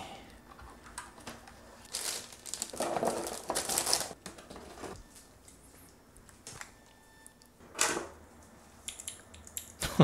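Rustling and crinkling of something being handled, in a few short bursts: about two seconds in, again around three to four seconds in, and once near eight seconds.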